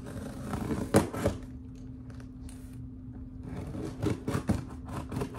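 A cardboard shipping box being opened by hand: rustling and scraping of cardboard and packing, with a sharp knock about a second in and a few more knocks around four seconds in.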